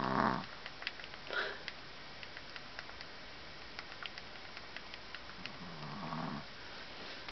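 A sleeping puppy snoring: one pitched snore at the start and another about six seconds in, with a soft breath between.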